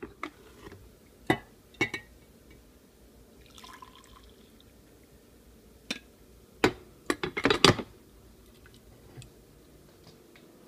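Coffee poured from a glass coffee-maker carafe into a ceramic mug, with sharp clinks and knocks of glass and ceramic being handled; a quick cluster of them about seven seconds in is the loudest.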